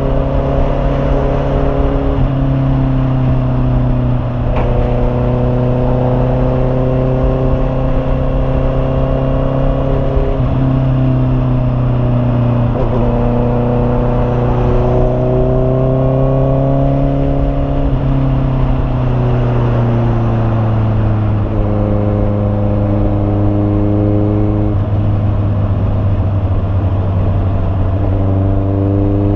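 Honda CB650R's inline-four engine running at a steady, held speed. Its pitch shifts slightly up or down every few seconds.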